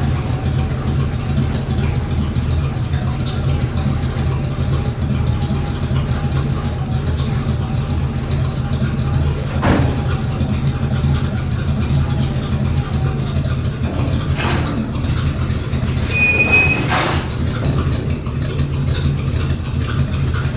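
A steady low mechanical drone, like a motor or engine running, with a faint wavering whine over it and a few sharp knocks, one about halfway through and two more near the end.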